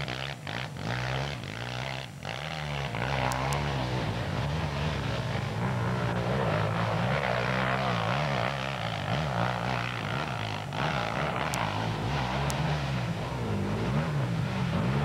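Off-road motorcycle engine noise, revving up and down as the pitch wavers. The sound drops away briefly a few times in the first two seconds, then runs on continuously under throttle.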